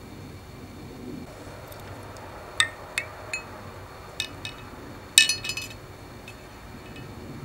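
Metal wire hooks and lighter parts clinking against glass jars: a few sharp, ringing clinks from about two and a half seconds in, then a quick rattle of clinks just past five seconds, the loudest.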